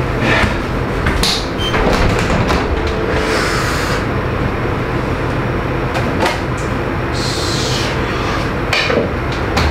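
A refrigerator door being opened and cans and bottles inside being handled: scattered clicks and knocks, with two short spells of higher rustling.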